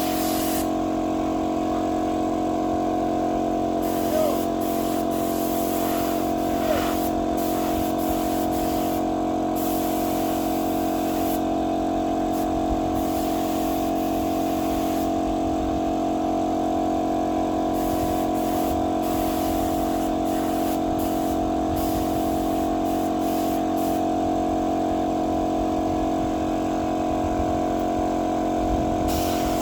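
Air compressor running steadily with a constant hum, and a paint spray gun hissing on and off at irregular intervals.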